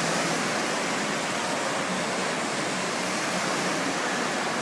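Artificial waves in an indoor wave pool: a steady rushing of water with no let-up.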